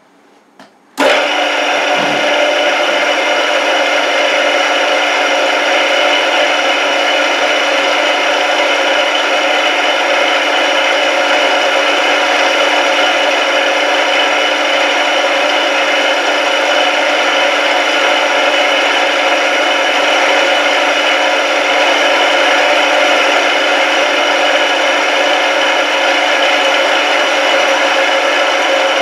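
Indexable end mill with APMT 1003 carbide inserts milling a metal block at 1600 RPM, 1 mm deep: a steady, loud cutting sound that starts suddenly about a second in and holds evenly throughout.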